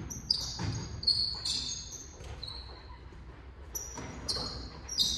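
Basketball sneakers squeaking on a hardwood gym floor as players cut and stop during a pickup game: many short, high squeaks in two flurries, one early and one near the end, with a quieter stretch between. A basketball bounces on the floor now and then.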